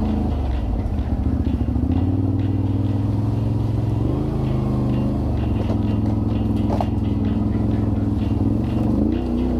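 Off-road vehicle's engine running steadily under way, its pitch rising and settling about four seconds in and again near the end.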